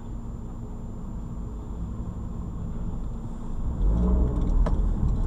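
Car engine and tyre rumble heard inside the cabin through a dashcam microphone, with a faint steady high whine. The rumble grows louder about four seconds in, and a single sharp knock comes shortly before the sound cuts off.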